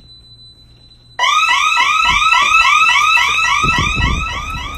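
Electronic building alarm going off, set off by opening the door of a closed office: a loud warbling tone that sweeps up and falls back about five times a second, starting about a second in.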